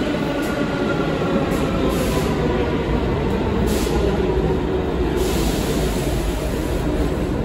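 New York City subway train moving through an underground station on the far track, with a steady rumble of wheels and running gear. Short high hisses come in about four and five seconds in.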